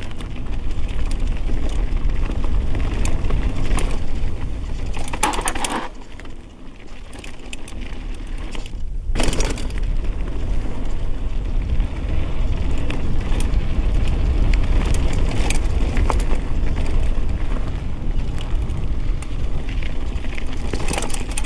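Mountain bike riding down a rough dirt singletrack: tyres running over roots and rocks, with the bike clattering and rattling over a steady low rumble. It goes quieter for a few seconds, then a sharp knock comes about nine seconds in.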